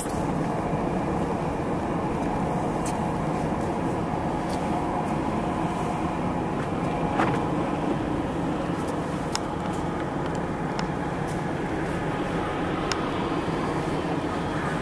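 Steady vehicle engine and road rumble heard from inside the cab, with a few faint ticks.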